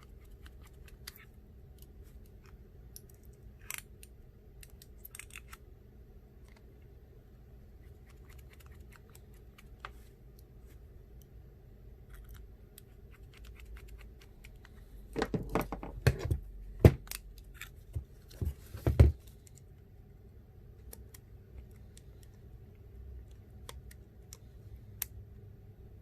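Small repair tools clicking and tapping against a phone and the work surface while the phone is reassembled, with a brief cluster of sharper, louder knocks a little past the middle, over a steady low hum.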